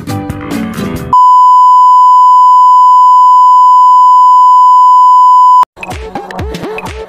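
Guitar music cut off about a second in by a loud, steady, single-pitch electronic beep, a censor-bleep-style tone held for about four and a half seconds before it stops abruptly. After a brief silence, electronic music with a regular pulsing beat begins.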